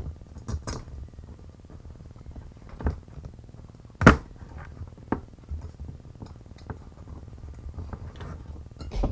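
Scattered clicks and knocks from handling a bicycle wheel and tire, with one sharp knock about four seconds in.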